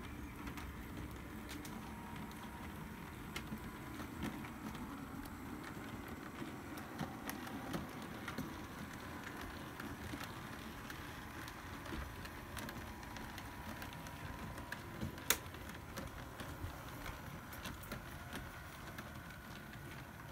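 Model railway locomotives running on the layout: a faint, steady electric-motor whine with light clicking of wheels over the track, and one sharper click about fifteen seconds in.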